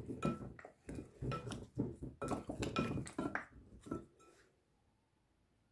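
Wooden spoon stirring sliced raw potatoes in oil in a glass mixing bowl: a quick, irregular series of knocks and clinks against the glass, each with a short ring, stopping about four seconds in.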